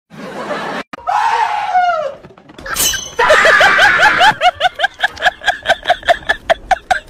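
Comedy sound effects laid over the clip: a cry falling in pitch, a crash about three seconds in, then high-pitched laughter in quick pulses, about four or five a second.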